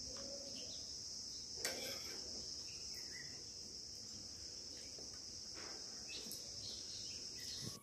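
Steady high-pitched shrill of insects, cutting off suddenly at the end. A few faint clinks of spoons against steel bowls.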